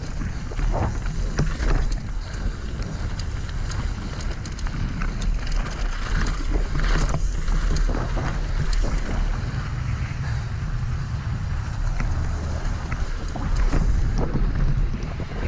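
Wind rushing over the microphone of a mountain bike ride, with the tyres rolling over a dirt and gravel trail and the bike knocking and rattling over bumps.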